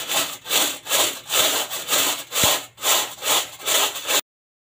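Metal scouring pad scrubbing burnt-on crust in the bottom of a metal cooking pot with dish soap, in quick back-and-forth strokes about two a second. The burnt residue does not come off with dish soap alone. The scrubbing cuts off suddenly near the end.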